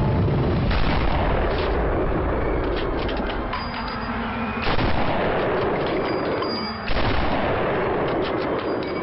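Three rifle shots, about one, five and seven seconds in, each followed by a long rumbling echo that fills the gaps between them.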